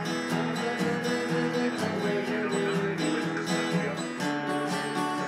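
Acoustic guitar strummed in a steady rhythm, playing a tune.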